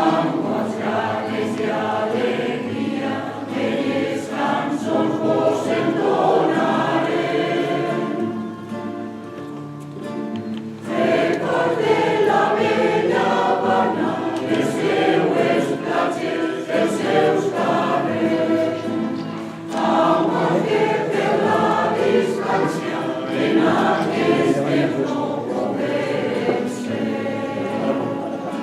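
Choir singing a havanera, the sung phrases swelling and easing, with a softer passage from about 8 to 11 seconds in before the voices come back in full.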